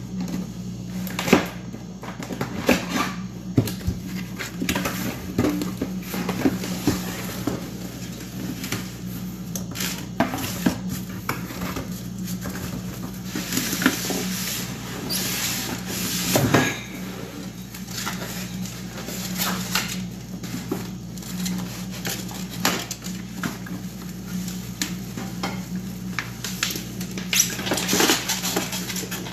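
Unboxing: a cardboard box and its flaps handled, plastic wrapping crinkling and rustling, and packing paper and polystyrene shifted, with many sharp knocks and clicks. A steady low hum runs underneath.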